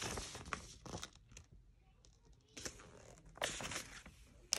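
Packaging being handled and unpacked: short bursts of rustling and crinkling, with a quiet gap in the middle and a sharp click near the end.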